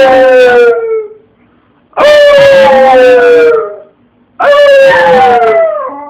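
A dog howling in long, drawn-out howls that each slide slowly down in pitch. One howl already under way ends about a second in, and two more follow, each about a second and a half long with a short pause between.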